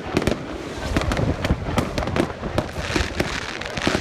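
A dense barrage of aerial fireworks: overlapping bangs and crackling from many shells bursting at once, with no pause between them.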